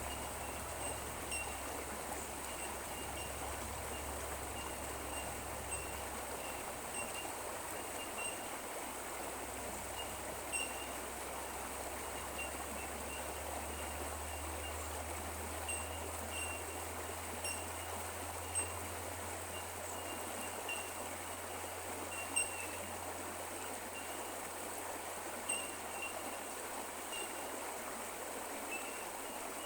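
Creek water running steadily, with a faint steady high tone and short chirps repeating throughout.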